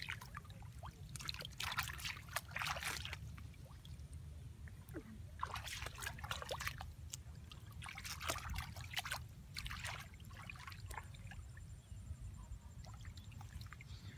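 Shallow water splashing and trickling in several short bursts as a person moves through it and works by hand, over a steady low rumble.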